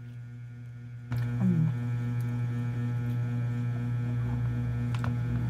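A steady low electrical hum that gets louder about a second in, with a short falling vocal sound just after and a few faint clicks.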